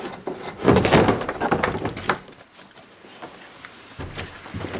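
Plastic kayak being slid off another kayak on a trailer: its hull scrapes and knocks against the one below. The loudest scraping comes about a second in, followed by scattered lighter knocks.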